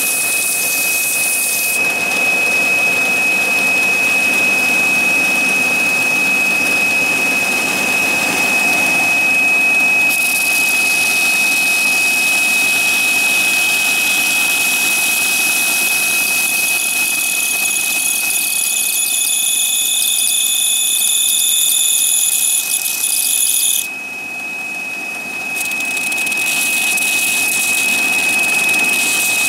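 Belt sander running with a steady high-pitched tone while an oak wheel blank is sanded on its belt, first flat on its back face, then turned on a screwdriver shaft against the belt to clean up the jagged hole-saw edge. The hiss of the sanding drops away for a second or two near the end, then returns.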